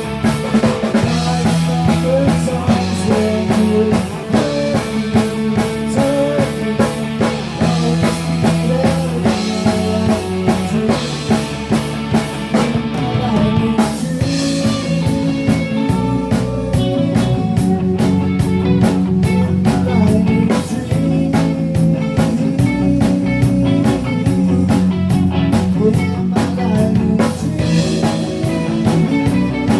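Rock band playing live: electric guitar, bass and drum kit keeping a steady beat through an instrumental stretch of the song.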